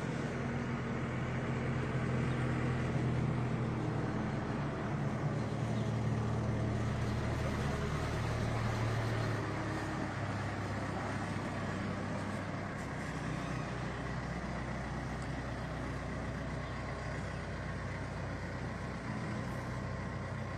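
Backhoe loader's diesel engine running steadily under work, its note shifting about halfway through, while it banks soil against the base of a tent.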